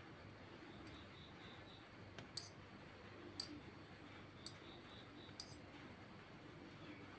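Near silence: faint room tone broken by about five short, sharp clicks spread through the middle.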